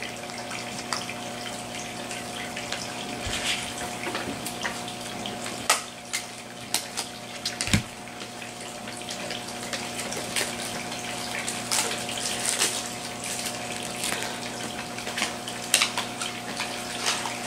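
Plastic toy packaging crinkling and rustling as hands open blind bags, with irregular small crackles throughout. A steady low hum runs underneath.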